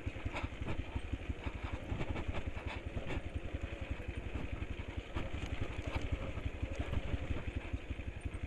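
Motorcycle engine running at low revs, a steady rapid putter, with a few sharp knocks over it.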